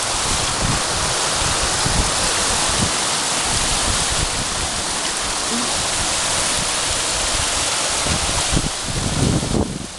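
Runoff water rushing steadily through a deep erosion gully beside a road, a loud, continuous rush. The flow is eating away the sand foundation under the road's edge.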